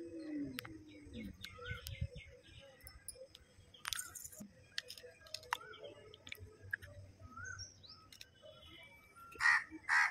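Outdoor birdsong: small birds giving short rising chirps throughout, with crows cawing loudly twice near the end. There is a low drawn-out falling call at the very start.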